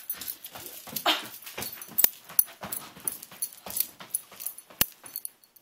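Irregular knocks, thumps and rustling of a person dancing wildly without music, with sharp clicks at uneven intervals.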